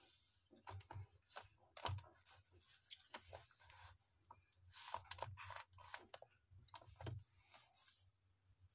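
Faint pencil scratching on lined notebook paper in short, irregular strokes.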